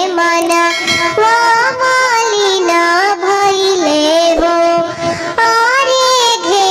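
A Bhojpuri sohar folk song sung in a high, child-like cartoon voice, the melody moving in held notes that step up and down.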